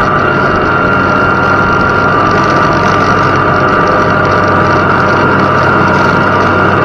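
Farm tractor engine running steadily under load while pulling a field cultivator through the soil, with a constant high tone over the engine note.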